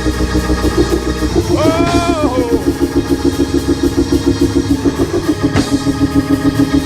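Church band music: a drum kit and band playing a fast, evenly pulsing beat, with one shouted 'Oh' about two seconds in.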